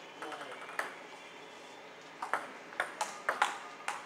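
Table tennis ball being struck back and forth in a rally, clicking sharply off the bats and the table: a few light ticks and a single hit in the first second, then a quick run of about seven hits in the second half.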